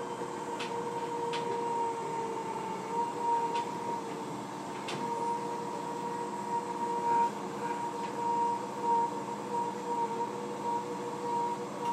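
Running noise heard inside a Fukuoka City Subway 1000N-series car under way: a steady whine and hum over the rumble of the wheels on the rails. A few sharp clicks come in the first five seconds as the wheels pass over rail joints.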